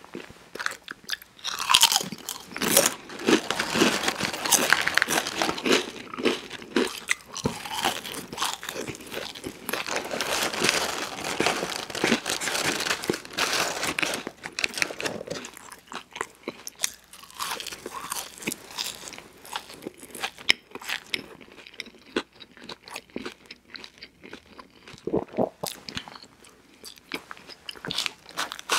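A person chewing crunchy food, loud dense crunching through the first half, then quieter, sparser chewing with scattered mouth clicks.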